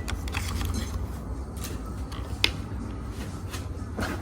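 A few sharp light clicks and soft rustling of objects being handled, over a steady low hum.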